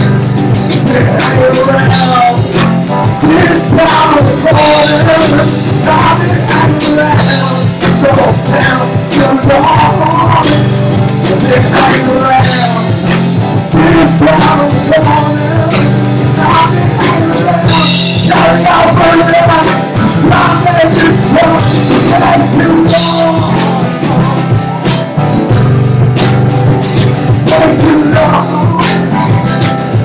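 Live rock band playing a song loudly: a strummed guitar, an electric guitar and a drum kit, with a male lead vocal sung over them.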